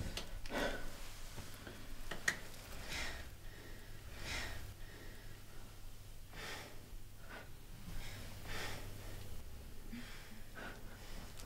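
A person breathing and sniffing through a bleeding nose, short breaths every second or two, over a faint low hum.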